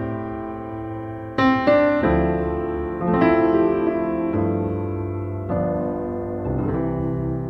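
Background piano music: slow, sustained chords struck about once every second or so.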